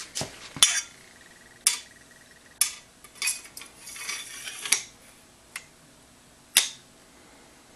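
A bayonet and its metal scabbard handled together: sharp metal clicks and clanks, with the blade scraping along inside the scabbard for about a second, a little over halfway through.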